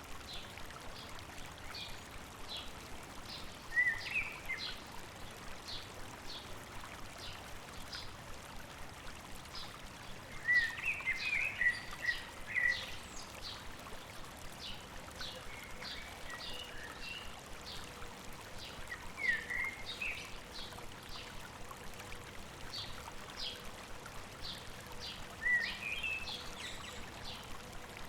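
Stream running steadily, with short bird song phrases breaking in several times, loudest about 11 seconds in, over a steady series of short high chirps about twice a second.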